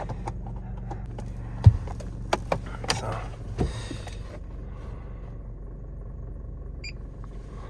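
Steady hum of the Scion xB's 1.5-litre four-cylinder engine, with a handful of sharp clicks and knocks in the first few seconds as a scan tool's plug is handled and seated in the OBD2 port. A short high beep sounds near the end.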